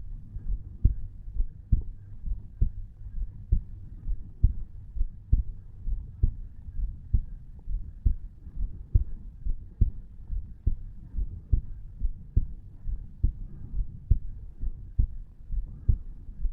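Resting adult human heartbeat: a steady run of low, soft thumps at about 68 beats a minute, which the recordist takes for his tricuspid valve opening and closing.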